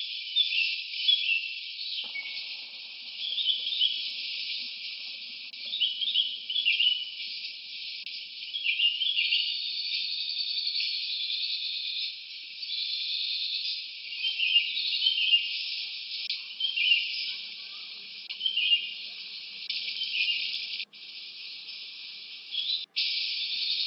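Jungle birds calling in short chirps and trills over a bed of insect chirping, the sound thin and tinny with nothing below the upper mid-range. It cuts out briefly a few times near the end.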